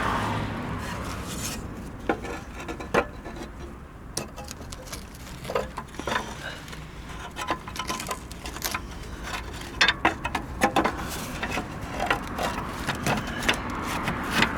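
Hands handling parts around a truck battery: scattered light clicks and knocks at irregular intervals, with some rustling.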